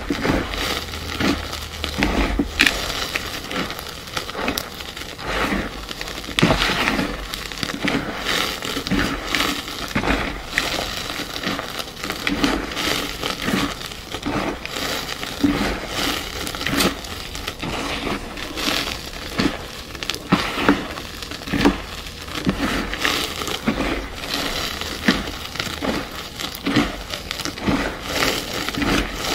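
Green pasted gym chalk blocks being crushed: a dense, continuous run of crunches and crumbly crackles, with sharper snaps here and there.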